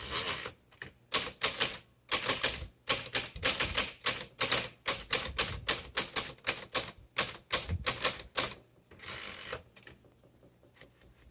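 Manual typewriter typing: sharp single key strikes at a steady pace, two to three a second, followed about nine seconds in by a short rasping sound and then a few faint ticks.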